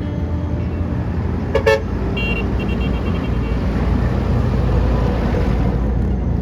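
Steady road traffic and engine rumble, with a short vehicle horn toot about one and a half seconds in, followed by a brief run of faint high beeps.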